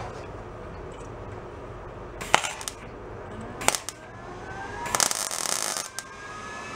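Electric welding arc struck three times in short bursts while tacking a patch onto a thin steel exhaust pipe, the last about a second long; the welder puts the uneven arc down to a poor ground connection.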